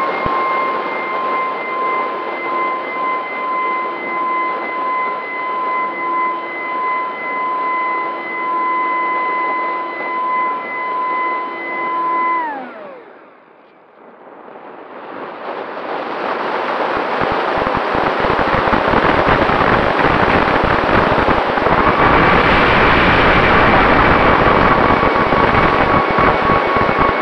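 Electric motor and propeller of an FPV aircraft heard through its onboard camera's microphone: a steady high whine that winds down and cuts out about twelve seconds in, a moment of near quiet, then rushing wind on the microphone that builds up, with the motor whine coming back near the end.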